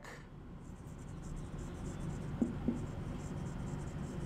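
Marker pen writing on a whiteboard: a run of short, faint scratchy strokes as a word is written, with two light taps about two and a half seconds in.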